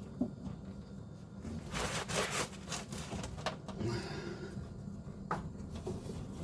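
Hands working a car part back into its fitting: scattered light clicks and knocks, with a brief scraping rustle about two seconds in.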